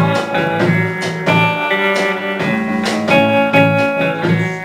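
Guitar-led band music playing an instrumental passage between sung lines of a song, with plucked guitar notes over a steady bass.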